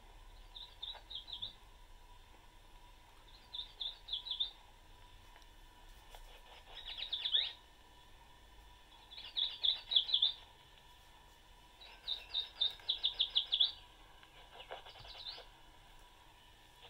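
Yellow warbler song played back from a sound card by a 1979 Microsonics 300 microphonograph through its small speaker: six short phrases of quick high notes, a couple of seconds apart. A faint steady tone and hiss run underneath.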